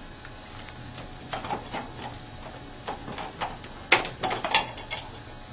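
Small clicks and knocks of a titrator's electrode being handled and lifted out of its holder above the sample beaker. The clicks come in scattered groups, the loudest cluster about four seconds in.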